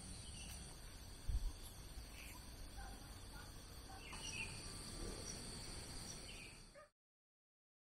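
Faint outdoor countryside ambience: a steady high insect trill with scattered short bird chirps and a brief low thump about a second in. The sound then cuts to dead silence for the last second.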